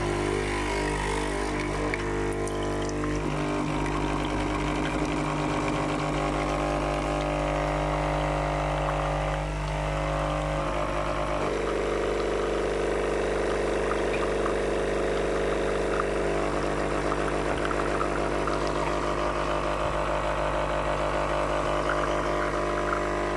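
Nespresso capsule coffee machine's pump humming steadily as it brews, with the hum's pitch shifting about halfway through.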